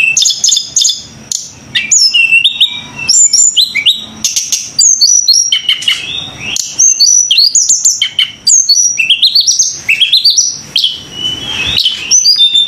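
A songbird singing loudly and without pause in rapid, varied phrases of chirps and whistles, with quick rising runs of notes in the second half.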